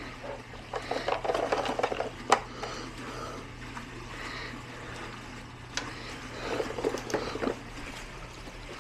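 A dog working a treat puzzle box: irregular rustling and scraping as it noses through the box, with a few sharp clicks and knocks.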